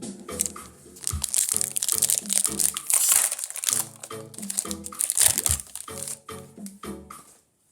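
Foil wrapper of a Pokémon booster pack crinkling loudly as it is handled and opened, over background music.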